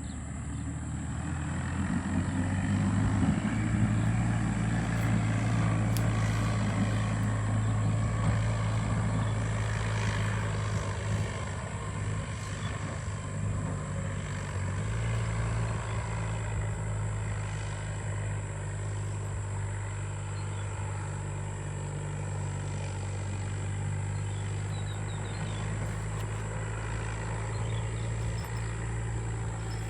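Engine running steadily with a low, even hum that barely changes pitch, over a constant high insect buzz.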